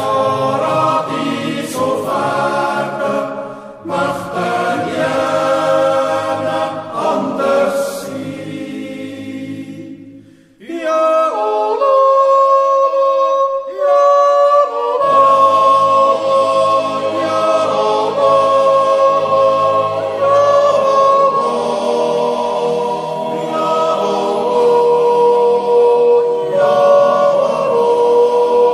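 Yodel choir singing a cappella in sustained chords, a wordless yodel passage. About ten seconds in the low voices fall silent and a few high voices carry on alone, and the full choir comes back in a few seconds later.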